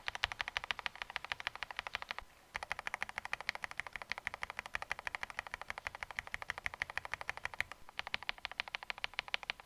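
Fast, continuous typing on a mechanical keyboard fitted with budget linear switches, giving a dense stream of keystroke clacks. It breaks off briefly about two seconds in and again near the end, where the test moves from one switch to the next.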